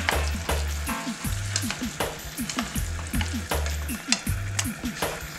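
Black spatula stirring and scraping chicken pieces in ranch dressing around a frying pan, with repeated scrapes and taps against the pan over the sizzle of the simmering sauce.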